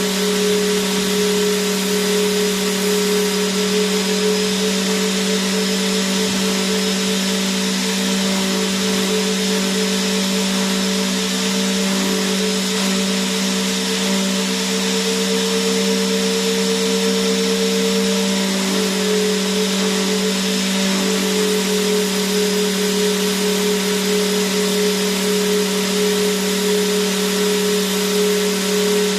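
Vacuum cleaner motor running continuously: a steady, unchanging hum with a wide airy hiss over it.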